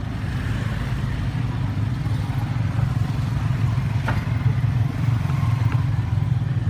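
A steady, low rumble like an engine running, with a sharp click about four seconds in.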